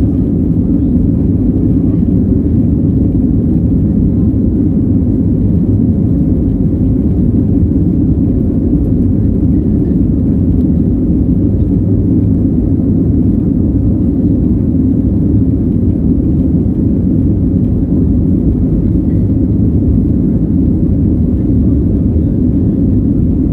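Boeing 737's turbofan engines at climb thrust just after take-off, heard inside the cabin as a steady, deep drone.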